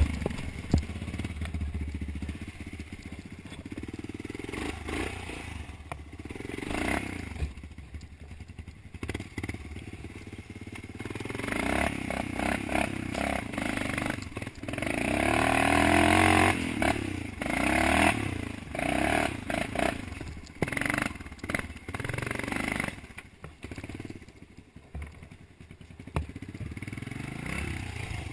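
Honda dirt bike engine revving in repeated bursts of throttle as the bike is ridden through thick brush, loudest about midway. Clattering and scraping of branches and the bike's plastics run through it.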